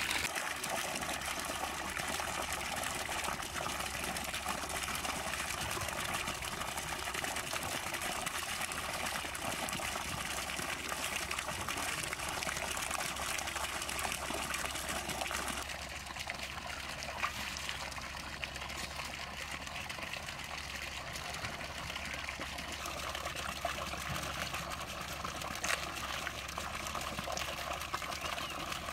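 Water pouring and splashing while raw mutton is washed in a metal pot, a steady rush of water. About halfway it gets quieter as the meat is handled in the wash water, with a few light knocks.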